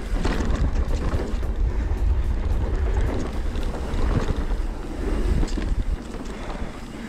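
Wind buffeting the microphone over a mountain bike's tyres on a dirt trail, with the bike clattering over bumps. It eases a little about six seconds in.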